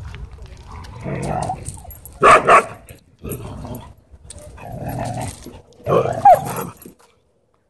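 Huskies growling and barking at each other in a tense face-off. Low growls come in between two loud pairs of sharp barks, one a little over two seconds in and one about six seconds in. The sound stops abruptly near the end.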